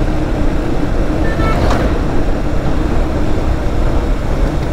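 Motorcycle riding at a steady speed: wind rushing over the rider's microphone over the engine's steady drone.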